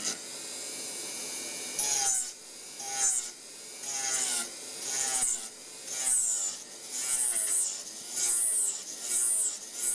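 Dental milling unit's micromotor with a carbide rough-grinding cutter grinding a cast metal coping, a high hissing scrape that comes in repeated strokes about once a second after a steadier first two seconds.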